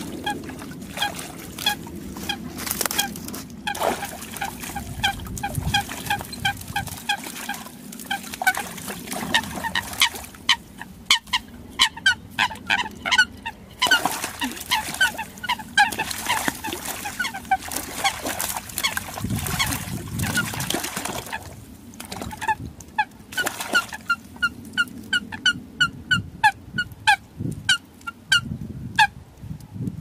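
Coots calling: long runs of short, sharp, pitched notes repeated several times a second, from more than one bird.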